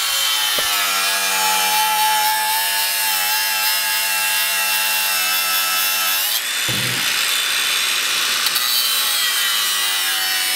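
Angle grinder cutting through the sheet-steel top of a car's strut tower: a steady high motor whine over a harsh grinding hiss. About six seconds in the pitch steps up and there is a brief low thud as the disc's bite changes.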